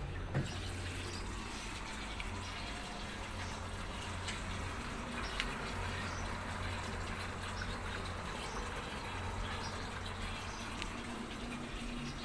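Water rushing steadily into an LG inverter direct-drive washing machine as it fills for a rinse-and-spin cycle, over a low hum. Two light clicks come about half a second and five seconds in.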